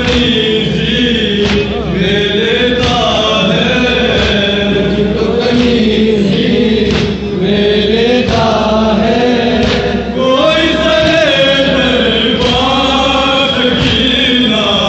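Men chanting a nauha, a Shia mourning lament, into a microphone, lead voices with the group joining in, held on long lines. A thud about every one and a half seconds keeps time, the chest-beating (matam) that goes with the chant.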